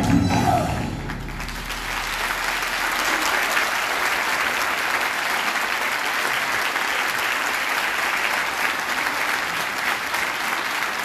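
The last music chord dies away in the first second, then a theatre audience applauds steadily.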